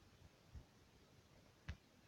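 Near silence with faint hiss, broken by two soft low knocks, one about half a second in and a sharper one near the end.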